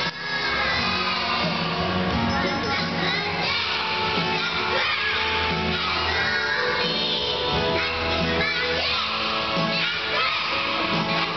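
A group of young children singing a song together in unison over accompanying music.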